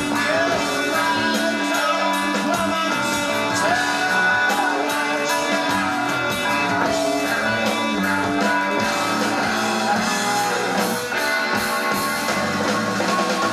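A live 1970s rock recording played from a vinyl LP: an instrumental stretch led by electric guitar playing bending notes over drums.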